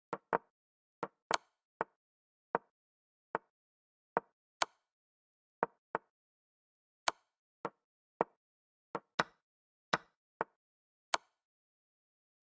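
Online chess board move sounds: about twenty short wooden-sounding clicks at an irregular, quick pace as pieces are moved rapidly with only seconds left on the clock.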